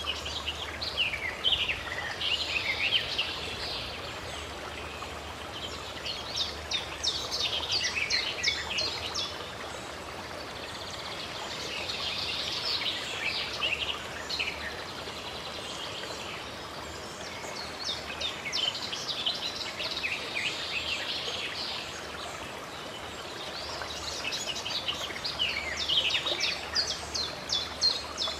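Songbirds singing in recurring bursts of quick, high chirps and trills every few seconds, over the steady rush of running water from a stream.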